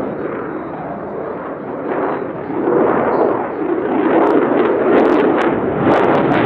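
Jet noise from an F-35A Lightning II's single F135 turbofan as the fighter comes closer. It is a loud, rough rumble that swells from about halfway through, with sharp crackles in the last two seconds.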